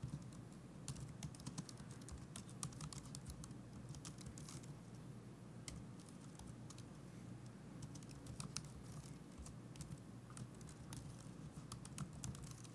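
Faint computer keyboard typing: runs of quick key clicks as a command line is typed, thinning out for a couple of seconds midway, over a low steady hum.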